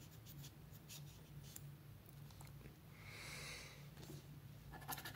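Faint scraping on a scratch-off lottery ticket's coating: a few light scratches in the first second and a half, a longer rasp about three seconds in, then quick repeated scratching starting near the end.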